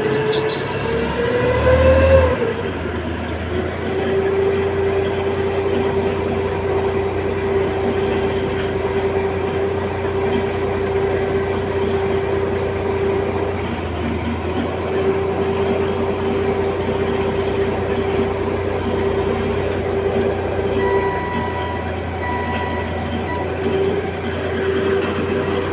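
Heavy machine's diesel engine running steadily with a constant whine over a low rumble; the pitch rises briefly near the start, then holds.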